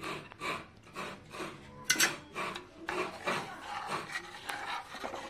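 A spoon scraping against the inside of a clay curry pot in quick repeated strokes, about three a second, with one louder scrape about two seconds in.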